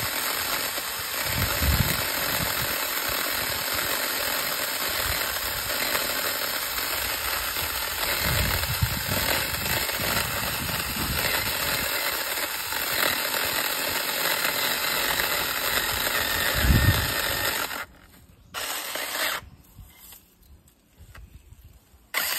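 A cordless 6-inch mini chainsaw running, its electric motor and chain cutting into a small trunk, with a few heavier knocks along the way. The saw stops about 18 seconds in, runs again for about a second, then stops.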